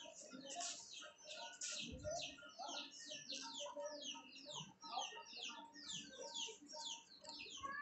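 Birds chirping rapidly and continuously: a dense run of short, high, slightly falling chirps, several a second.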